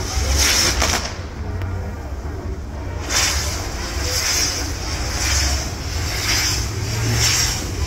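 Fireworks on a castillo tower burning, a hissing and crackling that surges with a whoosh about once a second over a low rumble. The hiss thins out for about two seconds near the start, then returns.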